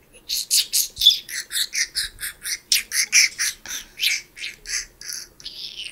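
A man imitating the call of the Yucatán wren with his mouth: a long run of short, high chattering notes, about five a second, fading toward the end.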